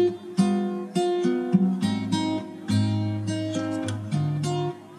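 Background music: an acoustic guitar strumming a run of chords, with sharp strokes at each chord change.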